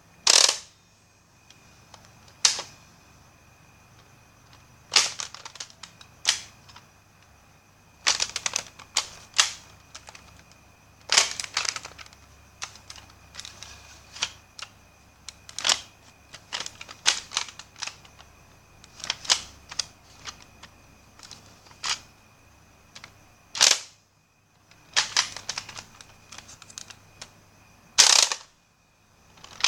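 Nerf blasters clicking and snapping as they are worked and fired: a series of sharp plastic clicks and shots, some single and some in quick clusters of several.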